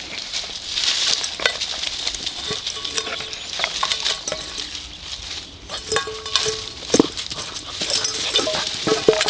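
Gordon Setter puppy eating from a stainless steel bowl: quick clicks and clinks against the metal as it feeds, the bowl knocking and scraping over the dry ground.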